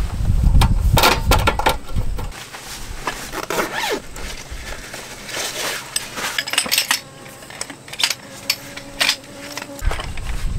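A run of light clinks and knocks of hard objects being handled, irregularly spaced throughout.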